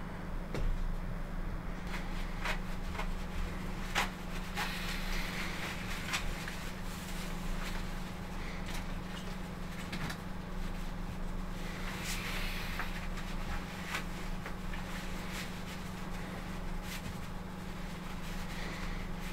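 Necktie being handled and knotted against a shirt collar: soft fabric rustles and a few small clicks over a steady low electrical hum.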